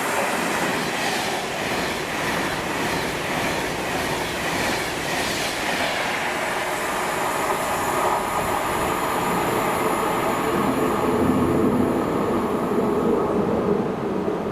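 A train moving through the station: a loud, steady rumble of wheels on rail, with rhythmic clicking over the rail joints in the first half and a steadier running note in the second half.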